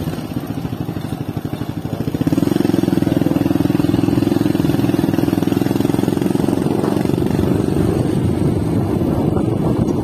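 Small motorcycle engine running close by, picking up about two seconds in and then running steadily and louder.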